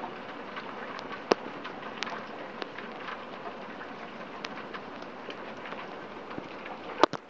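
Heavy rain falling, a steady hiss with scattered sharp taps of individual drops, the loudest about a second and a half in and near the end.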